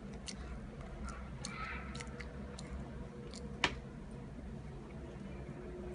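A drowsy toddler chewing bread: a few soft, sharp mouth clicks and smacks, the sharpest about three and a half seconds in, over a steady low room hum.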